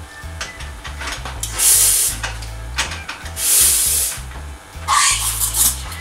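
Steam wand of a BFC Royal Imola commercial espresso machine hissing in three short, loud bursts about a second and a half apart, the last opening with a brief squeal.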